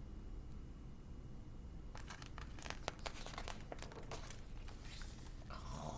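A picture book being handled: pages turning with crinkling and rustling, starting about two seconds in and lasting a few seconds.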